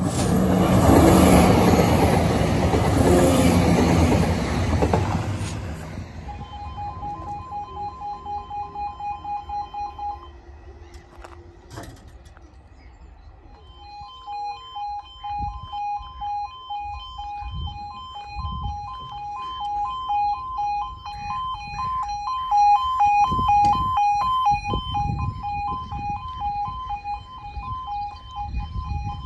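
Class 170 Turbostar diesel multiple unit passing over a level crossing, its noise ending about six seconds in. Then the crossing's two-tone warning alarm sounds, pulsing about twice a second; it breaks off for a few seconds and starts again as the crossing closes once more.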